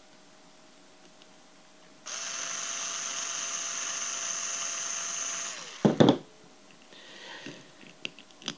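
Electric screwdriver running steadily for about three and a half seconds, backing a screw out of a fencing reel's cable connector. Its pitch sags as it stops. Right after come a couple of sharp knocks and a few light clicks of the small metal parts being handled.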